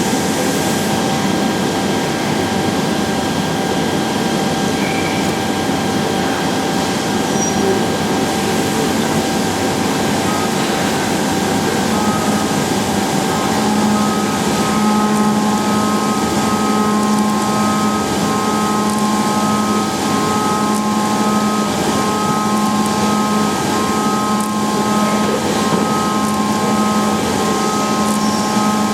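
Leadwell V-60iT 5-axis CNC machining centre running, a steady mechanical whir with a constant hum. About halfway through, a set of higher whining tones comes in and holds, with short breaks.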